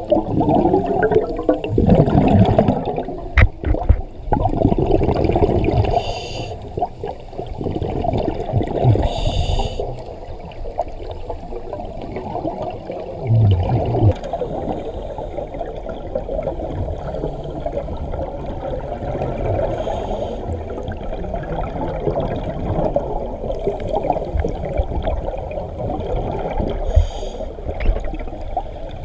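Scuba divers breathing through regulators underwater: exhaled bubbles gurgling and rumbling in irregular surges, with a few short hisses, all muffled and low-pitched.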